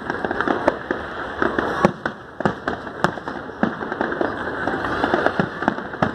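Fireworks going off: irregular sharp bangs several times a second over a continuous crackle.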